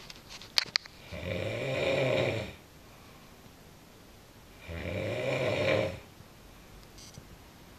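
A woman snoring in her sleep: two long, pitched snores about three and a half seconds apart, with quiet between them. A few sharp clicks sound about half a second in.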